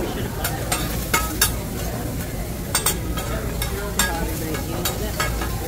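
Food sizzling on a hibachi steakhouse's teppanyaki griddle, with about a dozen sharp, irregular clinks and scrapes of the chef's metal utensils against the hot plate.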